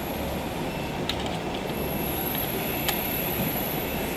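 Steady machinery noise with a few light clicks, and a thin high whine that starts a little before halfway.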